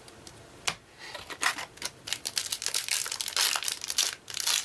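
Foil Yu-Gi-Oh booster pack wrapper crinkling and crackling in the hands as it is handled for opening. A single click comes just before a second in, then a fast, dense run of crackles.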